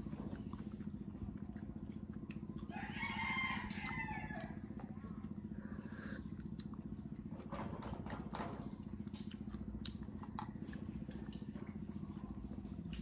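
A rooster crows once, a call of about two seconds starting about three seconds in, over a steady low hum and scattered small clicks.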